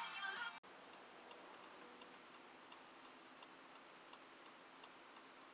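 A brief snatch of car-radio music cuts off about half a second in. It gives way to faint, even ticking of a car's turn-signal indicator inside a quiet cabin, over a low steady hiss.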